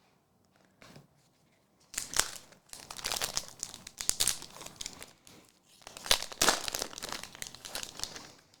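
A trading-card pack wrapper being torn open and crinkled by hand, in two spells of crackling rustle.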